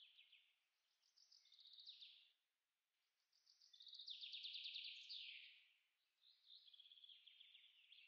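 A songbird singing faintly: repeated phrases of rapid trilled notes, each about one and a half to two seconds long and stepping down in pitch partway through, with short pauses between them.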